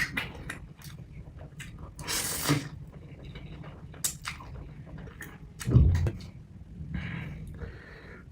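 Close-miked mouth sounds of eating noodles: small wet chewing clicks, a half-second slurp about two seconds in, and a low thump just before six seconds that is the loudest sound.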